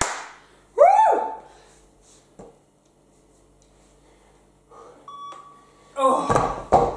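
A workout interval timer gives one short electronic beep about five seconds in, marking a switch between work and rest. About a second in there is a loud, short vocal sound that rises and falls in pitch, and near the end a louder rough, noisy stretch with a low thud-like rumble.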